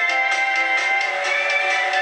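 Instrumental background music with a steady beat from a VHS tape, heard through a TV's speaker.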